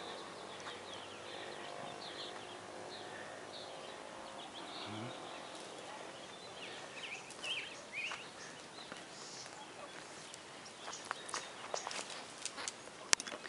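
Birds chirping, short scattered calls over a steady background hiss, with a few sharp clicks near the end.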